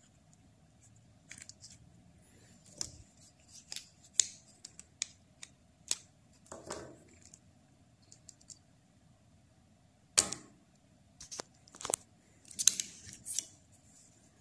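Irregular clicks, snaps and short scrapes of a plastic car door lock assembly and its lock cylinder being handled and fitted by hand. The sharpest clicks come about ten seconds in and again near the end, over a faint steady hum.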